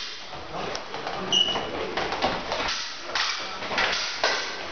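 Sabres clashing and fencers' feet stamping and shuffling on the floor of a large, echoing hall, a quick run of sharp knocks and clatters with a brief ringing tone from a blade about a second and a half in.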